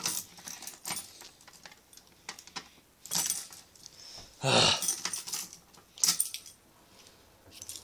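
A ring of keys jangling and a key rattling in the lock of a fire alarm pull station as it is worked back and forth; the key is stuck and won't turn. The jangling comes in irregular bursts, loudest about halfway through.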